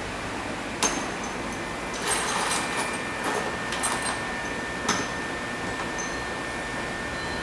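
Metal tools and engine parts clinking and tapping: a sharp knock about a second in, a cluster of light ringing clinks between about two and four seconds, and another knock near five seconds, over a faint steady high tone.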